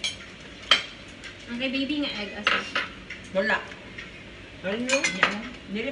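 Spoons and forks clinking against plates during a meal: several sharp clinks, the loudest about a second in, with people talking at the table in between.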